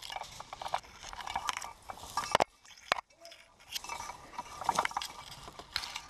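Dry grass rustling and brushing against a rifle and its mounted camera, with small rattles and clicks of gear as the player moves, and one sharp knock about two and a half seconds in.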